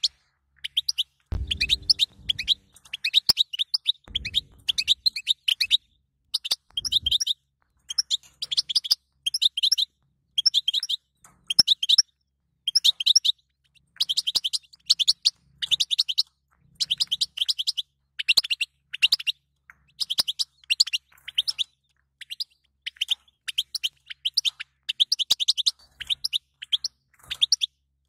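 European goldfinch twittering: quick runs of high chattering notes in short bursts about a second apart, repeating throughout.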